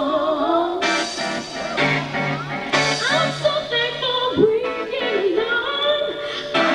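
Live music: a woman singing a lead vocal line that glides up and down in pitch over a band backing.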